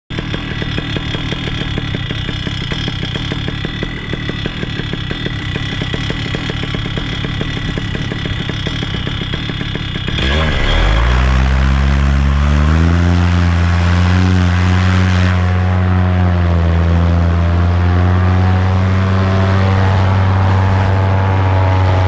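Paramotor engine and propeller idling with a fast, even pulsing, then throttled up about ten seconds in: the pitch climbs over two or three seconds and settles into steady, louder full-power running for the takeoff.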